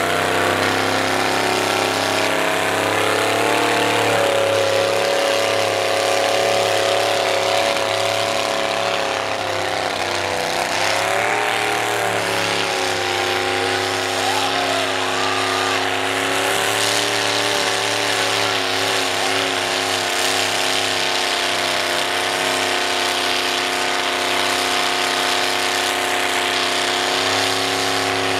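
Cadillac V8 of an old International pickup mud truck running hard at high, fairly steady revs as it pushes through the mud pit. Its pitch swells a few seconds in and wavers again about a third of the way through.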